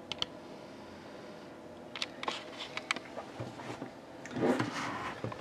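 Handling noises: a few sharp clicks and light knocks, then a short louder rustle about four and a half seconds in.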